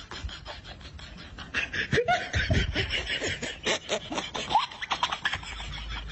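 Laughter, growing louder about a second and a half in and dying down near the end.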